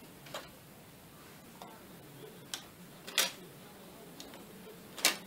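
About five short, sharp clicks of small plastic connectors and ribbon cables being handled on an LED TV's opened chassis, the loudest just past halfway and another near the end.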